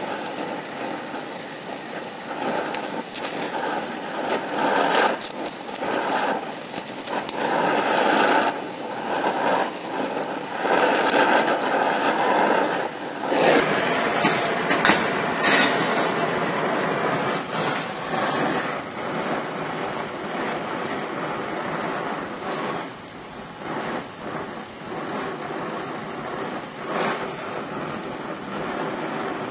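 DHC2000 oxyacetylene torch flame hissing steadily while gas-welding chromoly tubing. The hiss flickers in level and changes character about halfway through.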